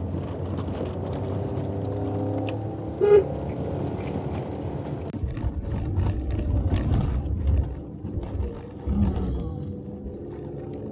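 Maruti Suzuki Alto 800's small three-cylinder petrol engine running under load as the car climbs a rough, loose mountain track, with a short car-horn beep about three seconds in. Short knocks and rattles come from the car working over the rough ground in the second half.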